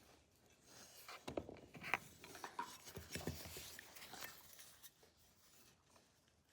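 Faint metal clicks and short scrapes of an offset screwdriver working at a screw in an old .410 shotgun's action, the screw starting to come loose.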